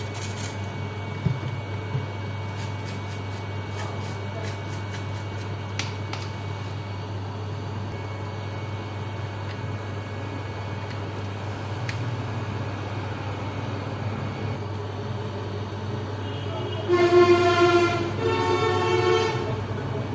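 A vehicle horn honking twice, each honk about a second long, over a steady low hum.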